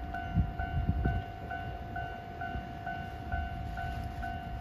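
Railway level-crossing warning bell ringing steadily, an electronic two-tone ding repeating about twice a second, over a low rumble from the distant freight train and wind that is strongest in the first second.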